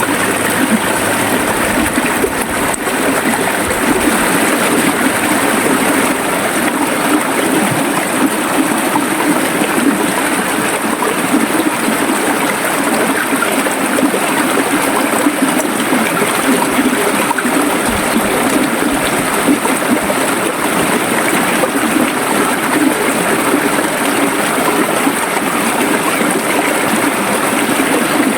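River water flowing steadily, a continuous rushing and gurgling with no breaks.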